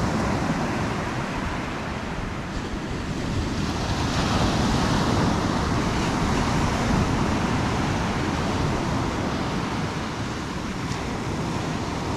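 Surf washing onto the beach, a steady rushing noise, with wind buffeting the microphone.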